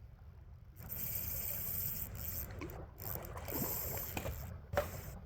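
Fishing reel drag giving line in short bursts as a hooked steelhead runs, starting and stopping several times, with a sharp peak near the end, over a steady river rumble.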